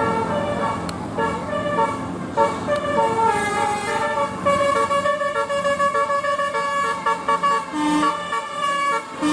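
Bus 'telolet' horn: a set of musical air horns playing a continuous tune of short stepped notes, one pitch jumping to the next every fraction of a second.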